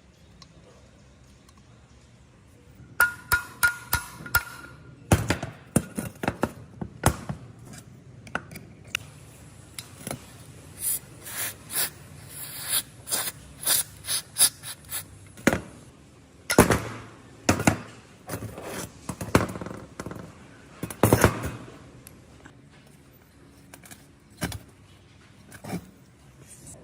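Irregular knocks, clinks and scrapes of hand tools and metal parts being handled during lawn mower repair work, with a brief metallic ring about three seconds in.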